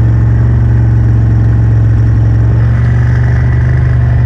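Suzuki KingQuad ATV engine running at a steady speed, one loud, unchanging drone.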